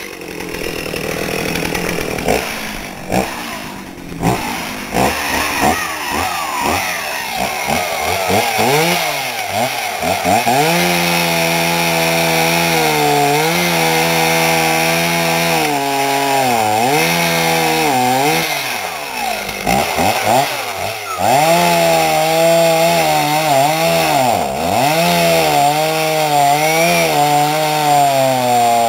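Chainsaw's two-stroke engine running at high revs while cutting a small dead tree. The pitch sags and recovers again and again as the chain bites into the wood. The first few seconds are uneven, with a few sharp knocks.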